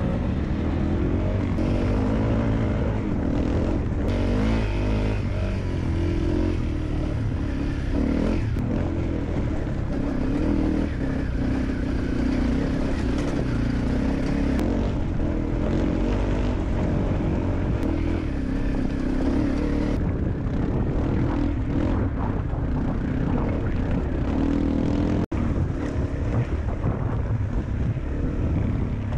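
Honda CRF250L single-cylinder four-stroke dirt bike engine running as the bike is ridden over rough trail, heard from on board with wind and tyre noise. The sound cuts out for an instant about 25 seconds in.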